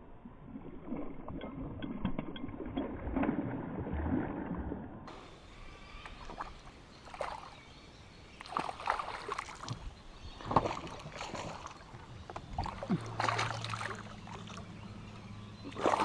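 Water sloshing and splashing around a canoe, with scattered knocks on the hull, while a hooked saratoga is played close to the boat. A low steady hum comes in near the end.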